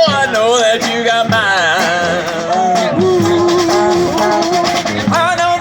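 Street brass band playing live: wavering horn melody lines over drums, with one long held note in the middle.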